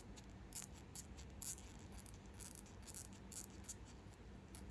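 Anchyleca fenestrata katydid stridulation, made by its wing covers rubbing together: a run of quick, irregular high-pitched ticks and scrapes.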